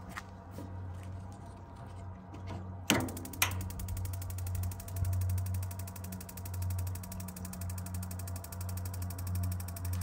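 Two sharp clicks about three seconds in, then the tankless water heater's electronic igniter sparking in a fast, even run of ticks over a steady low hum. The igniter sparks but the burner does not light, which the owner puts down to a failing or faulty gas valve.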